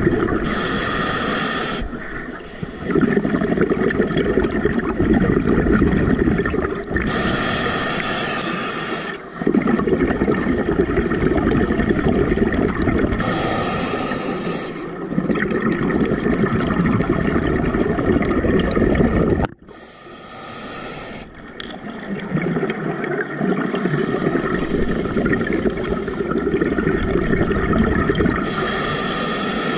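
Scuba diver breathing through a regulator underwater. Each inhale brings a hiss through the regulator, five times, about every six to eight seconds. Between them, a long rumble of exhaled bubbles.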